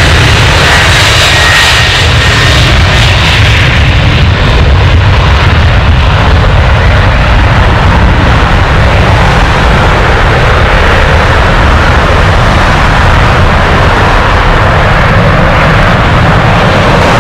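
Boeing 737's CFM56 turbofan engines at take-off power during the take-off roll and lift-off: a loud, steady jet roar, with a hissing whine strongest in the first few seconds.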